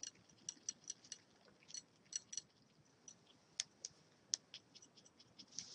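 Undissolved sodium hydroxide (lye) pellets in water tapping against a glass thermometer: faint, irregular light clicks, a few a second.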